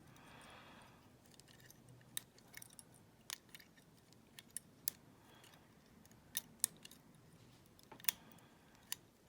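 Faint, scattered metallic clicks and light scraping of a homemade wire pick working the levers inside a WEP Secure 5-lever padlock under light tension, about seven sharp ticks at uneven intervals.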